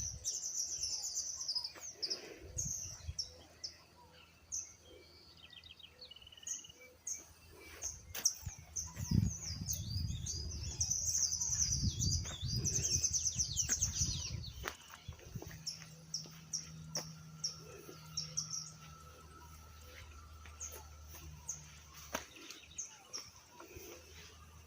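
Birds chirping and singing: many short, high calls throughout, thickest about ten to fourteen seconds in, with a low rumble under them at that point.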